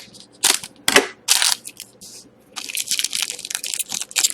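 Sealed pack of hockey trading cards being opened by hand, its wrapper crinkling and tearing: a few separate crackles, then denser crinkling from about halfway through.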